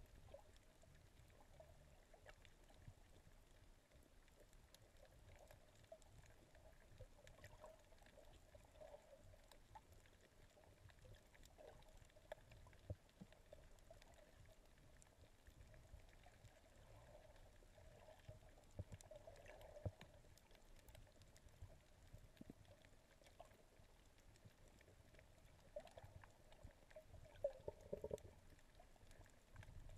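Near silence: faint, muffled underwater noise picked up by a GoPro in its waterproof housing, a low rumble with scattered faint clicks and a few slightly louder sounds near the end.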